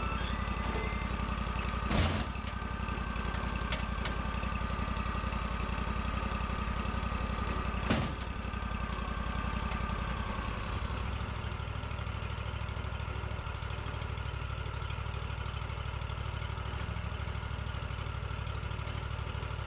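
Wood-Mizer LT40 sawmill's engine running steadily, with two sharp knocks about six seconds apart.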